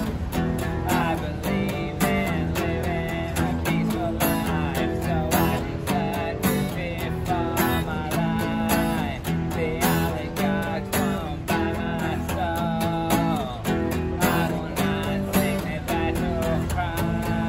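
Acoustic guitar strummed steadily with a man singing over it.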